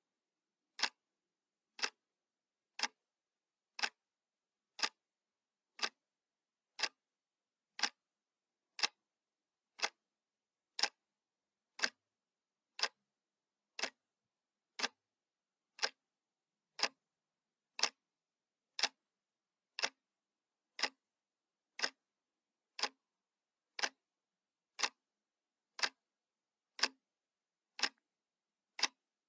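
Clock ticking sound effect: single sharp ticks, one per second, evenly spaced, with silence between them.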